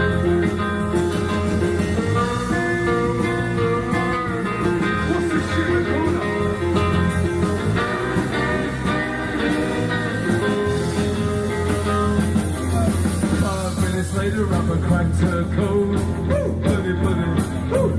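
Recorded rock song playing, an instrumental stretch with guitar and a steady beat.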